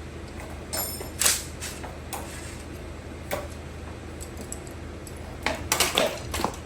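Scattered sharp metallic clicks and knocks of tools and bike parts being handled, one with a brief ringing ping about a second in, and a quick run of clicks near the end.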